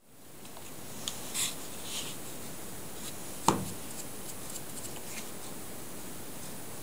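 Handling noise of a hand router being held and turned over: a few light clicks and a brief rustle, then one sharper knock about three and a half seconds in, over a steady room hiss.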